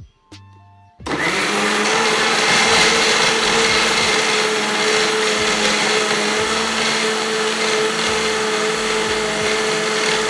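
Electric mixer grinder (mixie) switched on about a second in, then running steadily at full speed as it blends papaya chunks, ice cubes and milk in its jar, a loud motor whirr with a steady hum.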